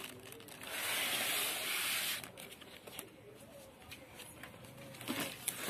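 Packaging being pulled out of a cardboard box: the bagged recorder and its foam end pieces slide out with a rough rubbing hiss lasting about a second and a half. Light rustling and crinkling of plastic and foam follows, with a few more rustles near the end.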